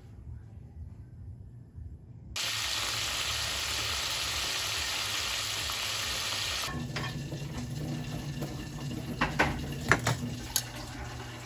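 Chicken drumsticks deep-frying in a pot of hot oil: a steady, loud sizzle starts a couple of seconds in. About halfway through it drops to a quieter sizzle, and metal tongs click against the aluminium fryer basket several times near the end.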